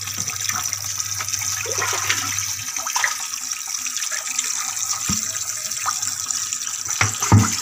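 Water running and splashing as a shallow concrete fish tank is refilled from a pipe. A plastic bucket knocks a few times, loudest near the end.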